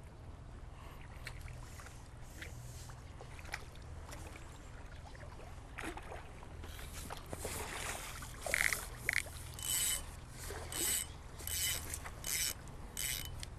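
A hooked carp splashing at the surface as it is brought to the bank and netted: a run of short splashes, about one every two-thirds of a second, getting louder over the last several seconds.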